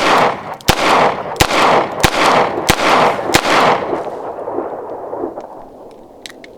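Smith & Wesson Model 19-5 snub-nose .357 Magnum revolver fired six times double action in a steady string, shots about two-thirds of a second apart. Each shot echoes, and the echo dies away over the last couple of seconds.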